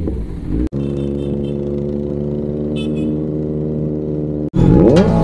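Kawasaki Z900's inline-four engine running at steady revs under way, its note holding even, cut off abruptly near the end by loud music.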